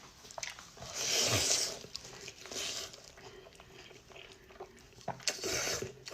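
Close-up eating sounds of noodles and fatty pork: small wet clicks of chewing, with three longer noisy bursts, the loudest about a second in, another midway and one near the end.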